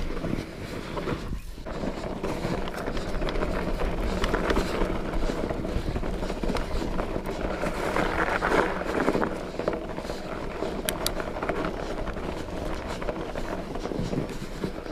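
Norco Bigfoot fat bike being ridden over a trail: rolling noise from the wide tyres, with rattles and small knocks from the bike. It gets a little louder about eight seconds in.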